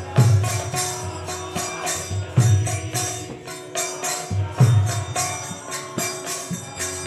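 Kirtan accompaniment with no singing: small hand cymbals striking in a quick, steady rhythm, deep drum strokes about every two seconds, and a held drone note underneath.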